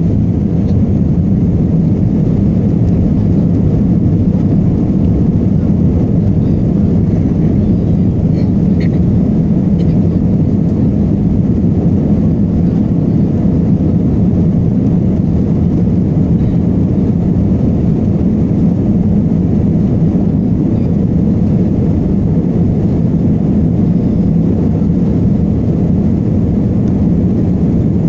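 Cabin noise inside an Airbus A320 taxiing: a steady low rumble from the jet engines at taxi power and the rolling gear, with no rise in thrust.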